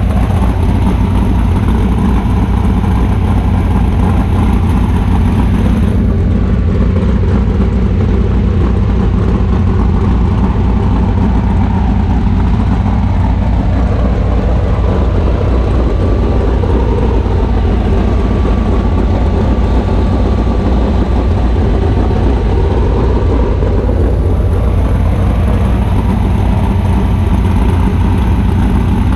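Rock-racing buggy's engine idling steadily, heard close up from a camera mounted on the car.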